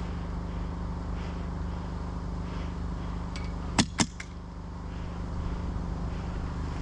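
Two sharp airsoft rifle shots in quick succession about four seconds in, with a fainter click just after, over a steady low hum.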